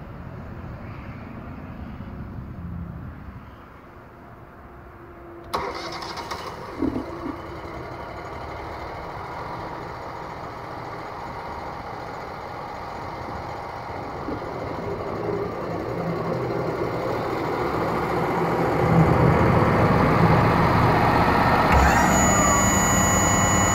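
Wood-Mizer LT35 band sawmill's engine starts about five seconds in, then runs steadily. From about halfway the saw head feeds along the log toward the camera cutting a slab, and the sound grows steadily louder, with a high whine of the band blade near the end.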